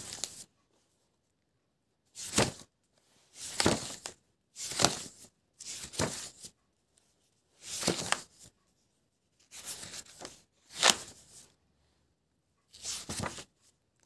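Pages of a spiral-bound sketchbook being turned by hand one after another: about eight short papery swishes, a second or two apart.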